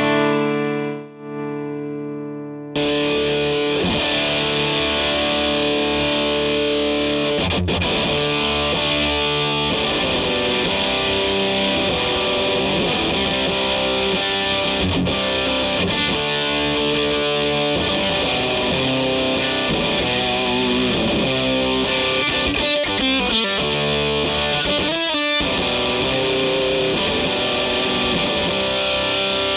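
Electric guitar played through a B1 Fuzzstortion pedal, a silicon Tone Bender-style fuzz with RAT-style filtering, giving thick, sustained fuzz-distorted chords and riffs. A duller chord rings at first, then about three seconds in the tone turns brighter and louder and holds steady.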